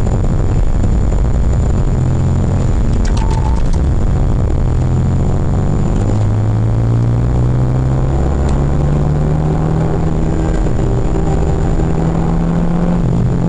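Renault Mégane R26.R's turbocharged four-cylinder engine heard from inside the cabin as the car is driven on track: the revs climb, drop at a gear change about ten seconds in, then climb again, over steady road noise.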